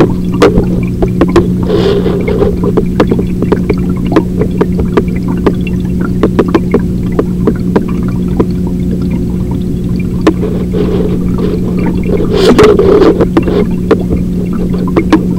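Aquarium pump humming steadily at a low fixed pitch, with many sharp clicks and crackles throughout. Short bursts of rushing noise come about two seconds in and again around twelve seconds in.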